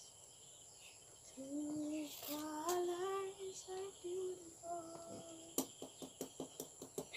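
A woman singing softly to herself, a short tune of held notes that step up and back down. In the last second and a half there is a run of light clicks, about three a second.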